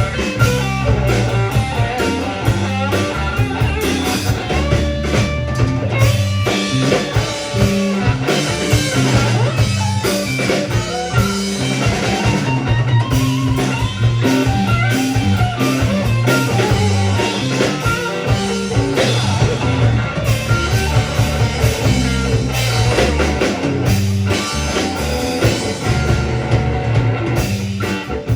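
Rock band playing live: electric guitar, bass and drum kit in a steady-beat instrumental passage.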